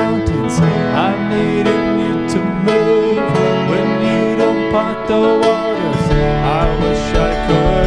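Music playing, with held chords and a few sliding melody notes.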